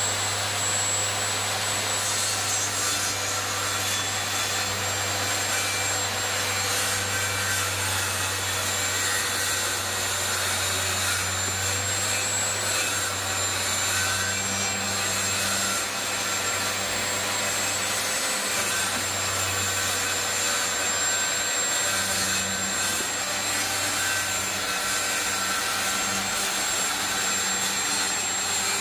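Handheld circular saw running steadily as it cuts through wooden roof slats, a steady high whine over the noise of the blade in the wood.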